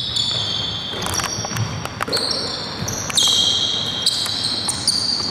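Players' shoes squeaking on an indoor court floor: many short high squeals overlapping and starting and stopping, with a few dull knocks of a bouncing ball or footfalls.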